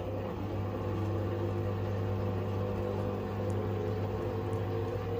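LG 7 kg front-loading washing machine's drum turning under its motor for an interim spin on a slightly unbalanced load: a steady hum with several steady tones above it and the swish of laundry in the drum.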